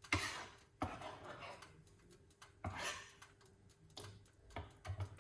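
A handful of short kitchen knocks and clatters, about five in all, from utensils and a pot being handled. A couple of them trail off in a brief rustle or scrape.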